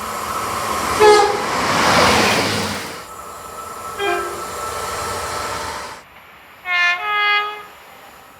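Short train horn blasts from several different trains. One brief toot comes about a second in, over the rushing noise of a passing train. Another short toot comes about four seconds in, and two quick blasts near the end.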